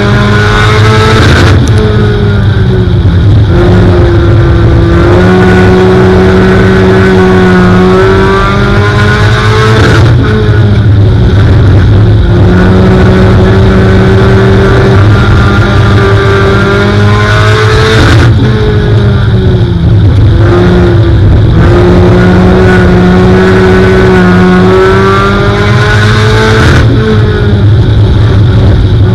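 Four-cylinder race car engine heard from inside the car's cockpit at high revs, its pitch dropping as the driver lifts into each turn and climbing again down the straights, several times over.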